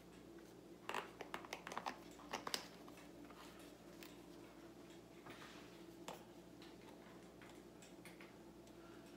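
Quiet room tone with a low steady hum, and a quick run of light clicks and taps between about one and two and a half seconds in.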